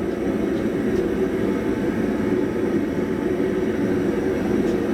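Forge running steadily, an even low rushing noise of air and flame that has just been switched back on.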